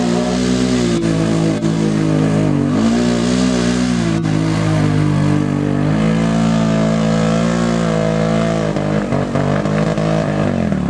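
ATV engine held at high revs as the four-wheeler's wheels spin and churn through deep mud. The pitch dips briefly a couple of seconds in and wavers near the end as the machine bogs.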